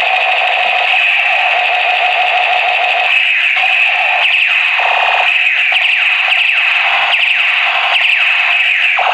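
Battery-powered light-up toy gun's electronic sound effects: a steady buzzing tone, then from about three seconds in a rapid series of falling-pitch zaps.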